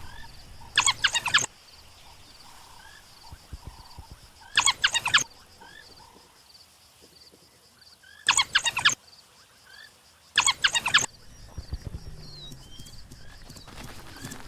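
African wild dogs twittering: four short bursts of rapid, high-pitched squealing chirps, a few seconds apart.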